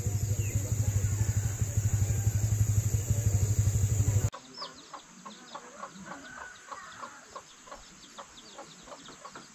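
A small engine running steadily with a fast pulse, cut off abruptly about four seconds in. After that, much quieter, chickens clucking with short repeated calls.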